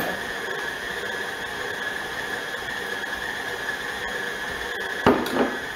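KitchenAid tilt-head stand mixer running steadily with a high motor whine as it mixes bread dough, with a single short knock about five seconds in.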